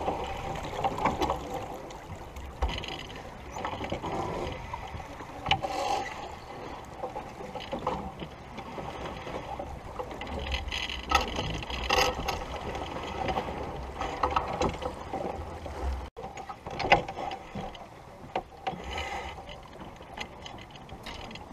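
Sailboat under way with wind rumbling on the microphone and water along the hull, broken by scattered clicks and knocks from the crew working the winches and lines.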